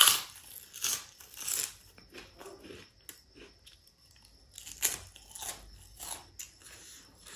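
Close-up crunching of a fried papad being bitten and chewed: a loud crisp crunch at the start, several more over the next two seconds, another loud crunch a little before five seconds in, and softer chewing between.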